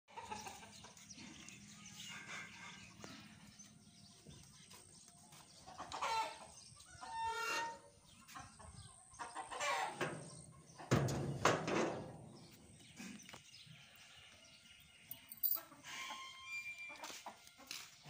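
Farmyard poultry calling: several separate calls and clucks, the loudest pair a little past the middle.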